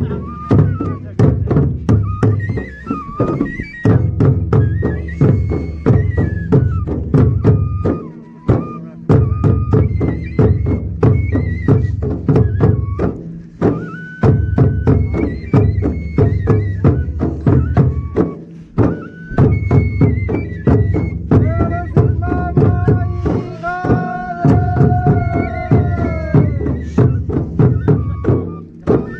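Pangwali traditional folk dance music: a steady drum beat under a high melody line, with a long held note that slides down near the end.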